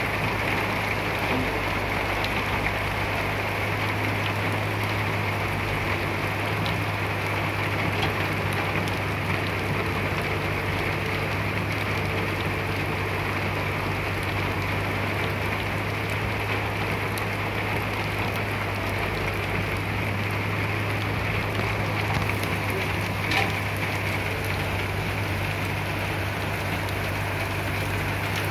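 Caterpillar E120B excavator's diesel engine running at a steady hum under a continuous dense hiss, with no change in pace throughout.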